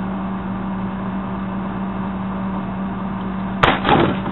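Steady low machine hum with a constant tone. About three and a half seconds in, sharp clicks and a brief rattle break in, followed by another knock near the end.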